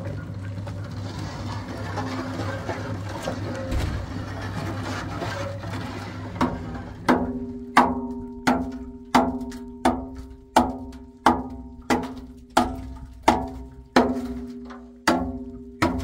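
A hammer strikes the steel drum of a concrete mixer in a steady rhythm, about one blow every 0.7 seconds, starting some six seconds in. Each blow leaves the drum ringing. The hammering knocks hardened concrete off the drum. Before it starts there is a steady low hum.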